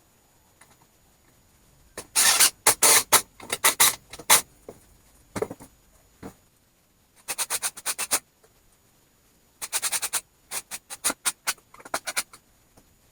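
Rapid rasping strokes of a hand tool working wood, in several runs of about five to eight quick strokes with short pauses between them.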